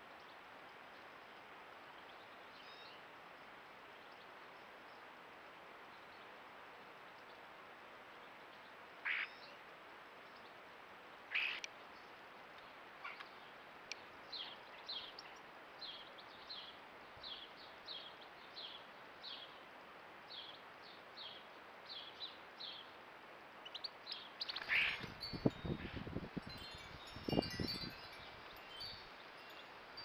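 Wild garden birds calling over a faint steady hiss: two louder calls, then a run of short high chirps at about two a second. Near the end come several low thumps among more chirps.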